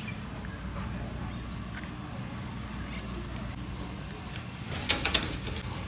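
Food-stall kitchen sounds: a steady low hum with faint clicks, and a brief loud crackle about five seconds in.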